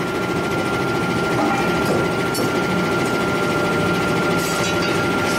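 Steady drone of heavy forge-shop machinery running, with a constant high whine over it and a few faint metallic clinks.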